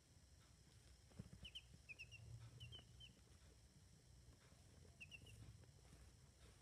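Drowsy baby chicks peeping softly: a few short, high chirps in quick falling groups of two or three, between about one and three seconds in and again about five seconds in, over a faint low hum.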